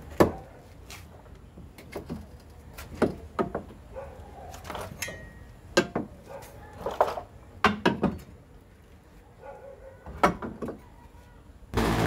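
Scattered knocks and clanks of steel parts being handled on a car's front frame, then near the end an arc (stick) welder strikes up with a loud, steady crackling buzz.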